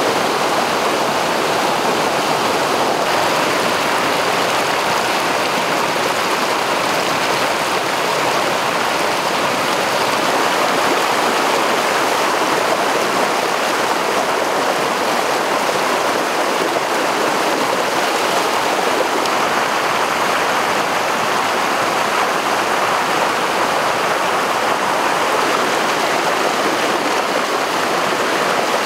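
Rocky stream cascading over boulders in white water: a steady rush of water.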